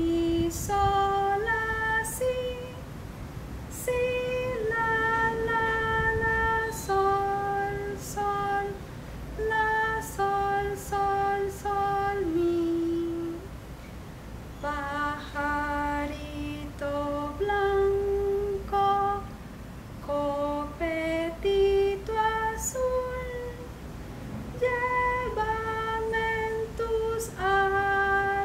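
A woman singing a simple pentatonic melody unaccompanied. Her notes step up and down in short phrases, some held, with brief pauses between phrases.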